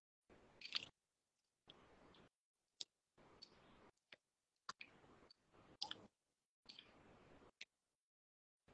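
Near silence: faint hiss that cuts in and out, with a few sharp clicks.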